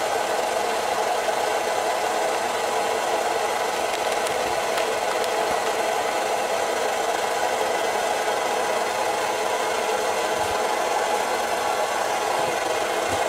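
Optimus 8R petrol backpacking stove burning steadily at a low setting, its valve only slightly cracked open, giving a constant even rushing noise from the burner and flame spreader.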